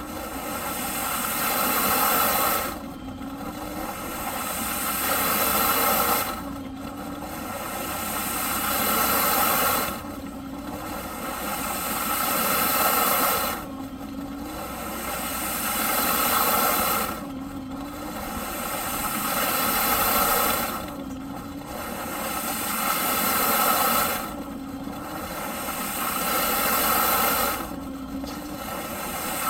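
Eureka PowerSpeed vacuum cleaner's motor running, its sound surging in a regular cycle about every three and a half seconds: it swells up, then drops off sharply and briefly dips in pitch before building again.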